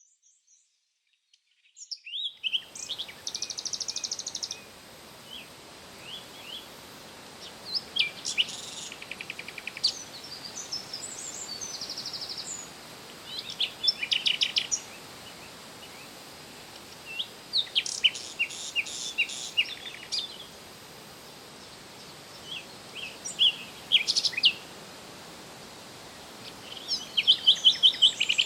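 Songbird singing short phrases of quick chirps and trills, repeated every few seconds, over a steady background hiss; the song begins about two seconds in.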